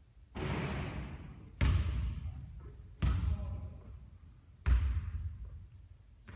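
A basketball bouncing on the court, four thuds about a second and a half apart, each ringing on briefly before fading.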